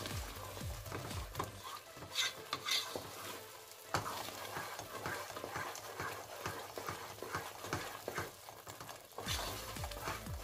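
Wooden spatula stirring and scraping thick beetroot halwa around a metal pot in irregular strokes, with a light sizzle of the ghee it is cooking in as it thickens near the end of cooking.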